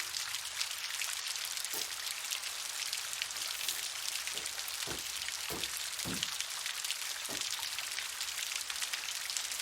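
Steady crackling patter of rain, with a few short soft thumps in the middle stretch.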